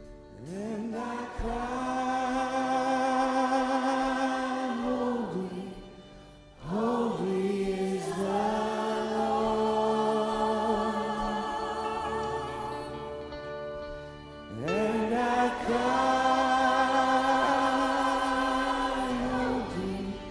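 Live gospel worship singing: three long sung phrases, each drawn out on held notes with a wavering vibrato, with short breaths between them.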